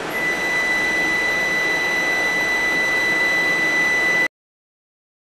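Steady machine noise with a constant high-pitched whine, cut off abruptly about four seconds in.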